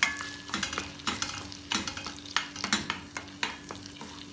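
Wooden spatula stirring and scraping a thick ground masala paste around a stainless steel kadai, with irregular scrapes and knocks against the pan while the paste sizzles in melted butter as it is sautéed.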